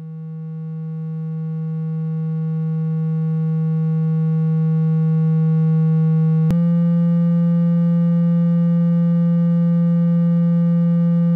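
Low, steady electronic tone played to shake water out of a phone speaker, swelling in loudness over the first half. About six and a half seconds in there is a click and the pitch steps up slightly, then holds steady.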